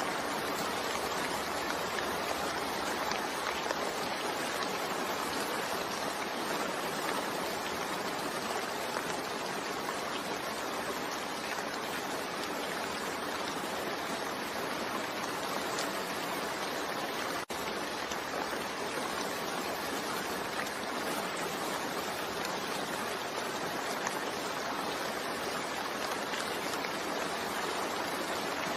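Steady, even rain, an unbroken hiss of falling water with no distinct drops standing out. A little past halfway it cuts out for a split second and comes straight back, like a seam in a looped recording.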